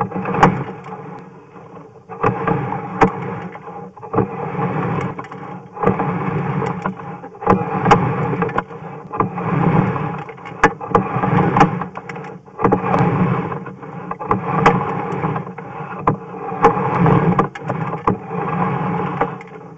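Sewer inspection camera's push cable being hauled back through the pipe in repeated strokes: about one spell of scraping noise with sharp clicks every two seconds, with short pauses between pulls.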